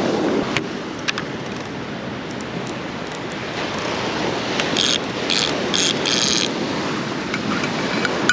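Baitcasting reel being cranked to retrieve a cast lure, its gears giving a mechanical ratcheting that comes in four short bursts a little past the middle, over steady surf and wind noise.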